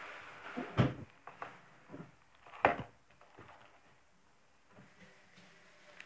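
Shrink-wrapped plastic DVD case being handled: a soft rustle of the wrap at the start, then two sharp clacks of the case against the wooden table, about a second and nearly three seconds in, with lighter taps between them.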